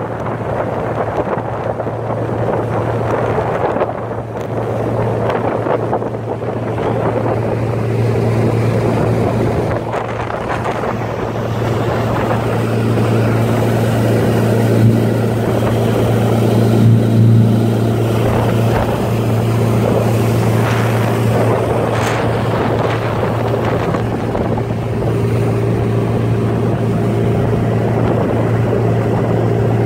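Small motorboat's engine running steadily at speed, a constant low hum, with rushing wind and water over it. The motor gets a little louder about twelve seconds in.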